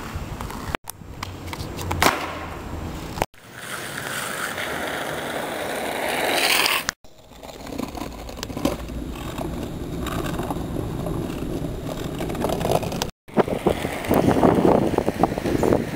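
Skateboard wheels rolling over concrete and asphalt, with sharp knocks and scrapes of the board, broken into pieces by four brief dropouts. The rolling is loudest near the end, on rough asphalt.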